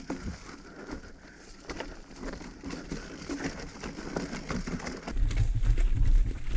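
Mountain bike rolling down a rocky trail of loose stone slabs, the tyres and frame rattling with irregular knocks and clatters over the stones. About five seconds in, a loud low rumble comes in and becomes the loudest sound.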